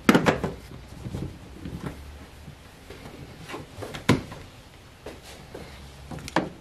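Knocks and bumps of a car's rear seat section being released and pulled loose: a loud knock right at the start, lighter clunks and rubbing, and another sharp knock about four seconds in.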